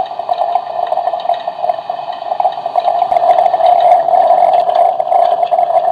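Single-cup coffee maker brewing: a steady pump hum with water gurgling and bubbling through it.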